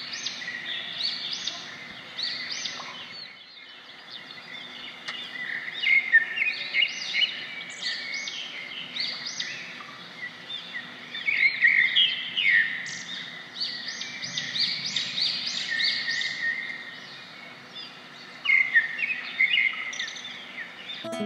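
A chorus of small birds chirping, many short high calls overlapping, with brief lulls about four and eighteen seconds in.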